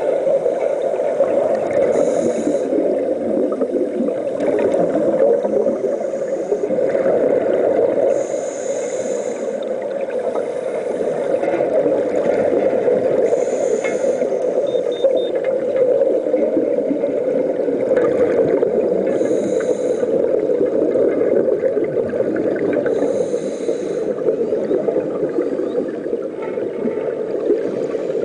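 Underwater sound on a scuba dive: a steady muffled rush, with a short hissing burst of bubbles every few seconds, typical of divers' regulators exhausting their breath.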